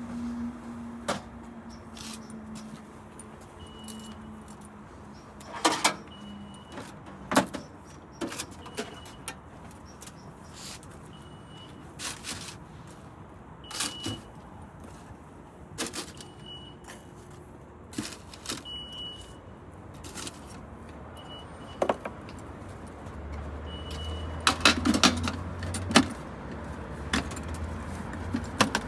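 Knocks, clicks and clatter of metal and crockery as a barista works with coffee-making equipment, with brief high tones every second or two. A hum falls slowly away over the first few seconds, and a low hum runs for a few seconds near the end among a flurry of knocks.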